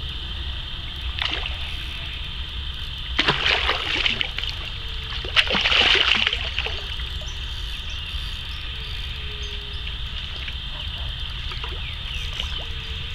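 A hooked pacu splashing and thrashing at the water's surface in three short bursts, a faint one about a second in, one around three to four seconds in and the loudest near six seconds. A steady high-pitched whine and a low rumble sit underneath.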